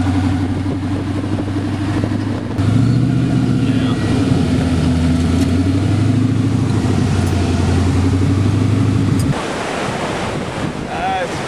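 Twin-turbo LS V8 of a sand buggy heard from inside the cockpit, running at a steady pitch and getting louder about two and a half seconds in. It cuts off abruptly near the end, leaving wind blowing on the microphone.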